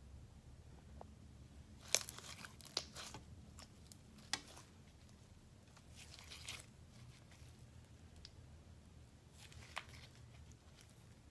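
Sticky clear slime being handled and stretched, giving off irregular small crackles, pops and tearing sounds in several clusters.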